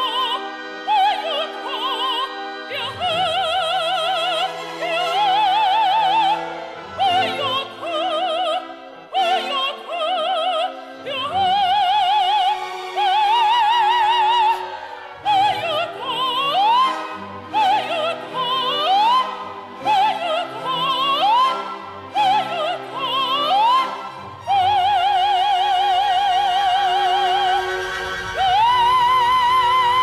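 Operatic music: sopranos sing long, wide-vibrato notes over an orchestra. Through the middle come short calls, each leaping upward.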